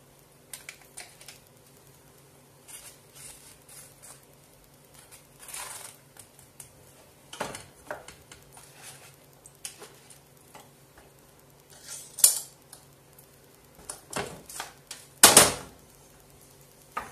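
Scattered clinks and knocks of metal cookware and utensils, with two louder clanks in the second half.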